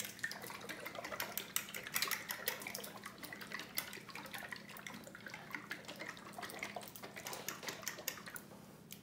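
A 12-ounce bottle of barbecue sauce, used as a marinade, shaken hard by hand: the sauce sloshes inside in quick, irregular strokes.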